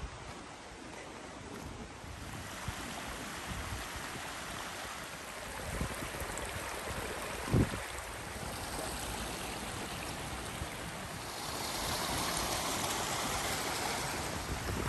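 Steady rush of running water, growing louder about eleven seconds in, with one short thump near the middle.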